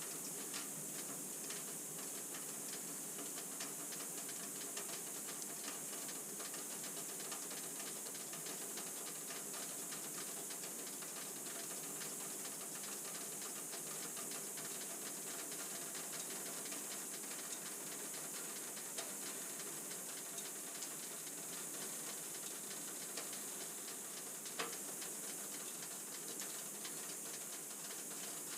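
Pine fire burning in a wood stove with its air vent pulled closed and the door sealed by a new gasket, throttling the burn: a steady soft hiss with fine crackling, and one sharper crack about 25 seconds in.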